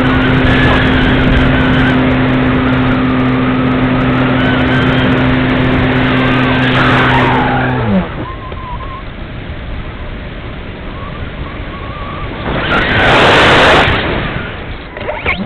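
The electric motor and propeller of a Parkzone Radian Pro motor glider runs at a steady pitch, with airflow rushing over the wing-mounted camera. About halfway through, the motor cuts off and its pitch falls away, leaving wind noise with a louder rush of air a few seconds before the end.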